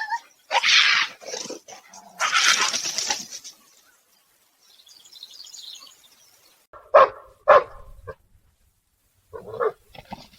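A dog barking: two short, sharp barks about seven seconds in and a weaker one near the end. Before them come two bursts of rustling noise.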